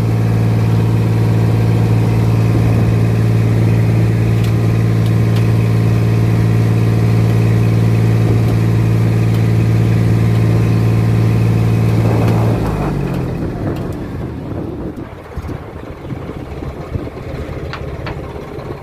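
A river ferry's car-type inboard engine running hard at a steady speed, its exhaust loud through a silencer on the cabin roof. About twelve seconds in the engine note sinks and drops away as it is throttled back, leaving a quieter, rougher rumble.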